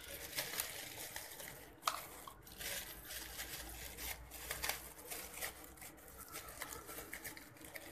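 Thin plastic spice packet crinkling and rustling as it is handled, with scattered light clicks.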